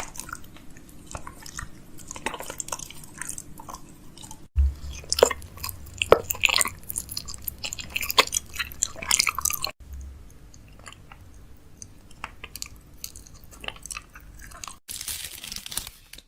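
Fridge-restocking handling sounds: a run of short clicks, taps and crinkles as packaged food, drinks and plastic containers are picked up and set down. The sound jumps to a new take about every five seconds.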